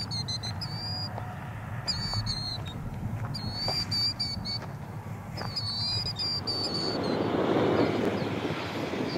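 A bird sings short high chirping phrases, four times, roughly every second and a half, over the low steady rumble of distant jet engines. Near the end a rushing jet noise swells up and is loudest about 8 seconds in.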